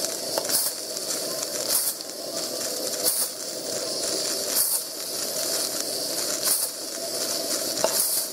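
Regner steam-driven boiler feed pump on a live-steam model of Harz locomotive 99 222 working: a steady steam hiss with a louder hissing puff at each pump stroke, about every one and a half seconds, slightly uneven.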